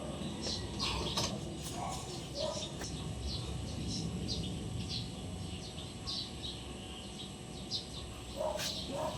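Small birds chirping in short, irregular calls throughout, over steady low background noise.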